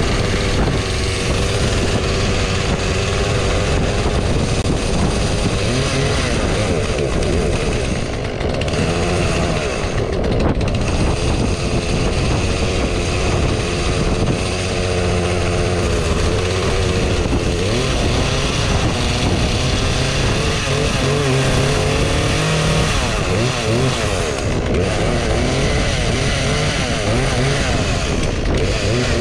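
Poulan Predator two-stroke chainsaw running on freshly added fuel, its engine speed rising and falling throughout.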